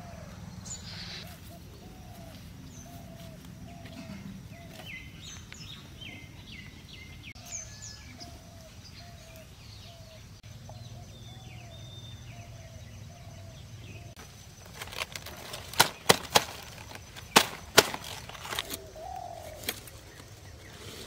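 Outdoor birdsong: one bird repeats a short, low note about twice a second for the first half, with other birds chirping higher. Later comes a run of sharp cracks and snaps, the loudest sounds here, as cabbage plants are handled at the base.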